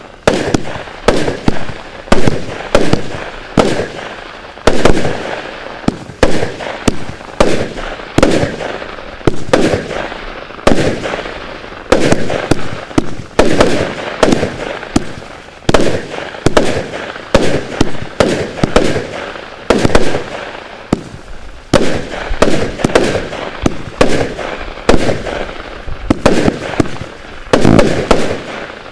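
Zeus Fireworks 'Dubai Adventures' 209-shot consumer firework cake firing, a steady rapid string of launches and bursts, about two bangs a second, with noise carrying on between the bangs.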